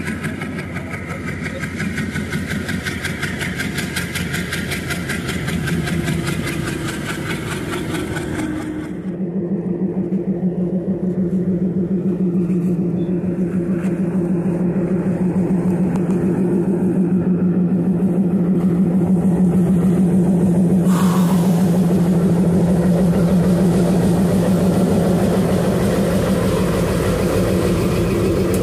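Diesel locomotive engine working hard under heavy acceleration as a passenger train pulls away, with the coaches' wheels rolling and clattering. From about nine seconds in, the steady deep drone of a diesel locomotive passing close takes over and grows louder, and a hiss joins it later.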